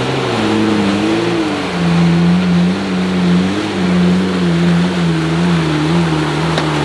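Jeep Wrangler engine working under load through deep mud and swamp water, its revs rising and falling, with mud and water splashing against the tires and body.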